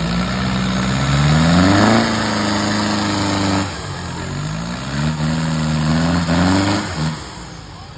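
Off-road 4x4 truck's engine revving hard under load. It rises in pitch about a second in, drops back, climbs again around the middle and falls away near the end.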